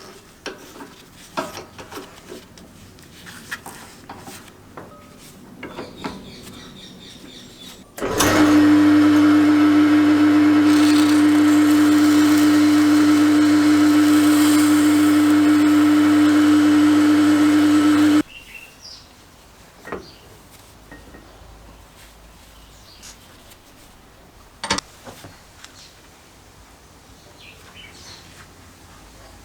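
An electric power tool switches on and runs at a steady pitch for about ten seconds, then cuts off, between light clicks and knocks of parts being handled on a bench.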